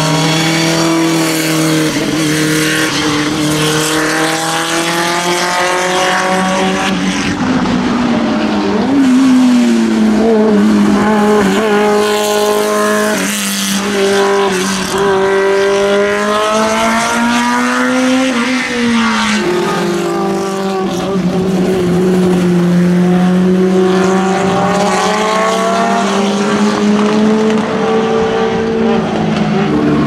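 Historic racing sports cars driving past at speed on a wet track, one after another. Their engine notes rise and drop as they change gear, over the hiss of tyres throwing up spray.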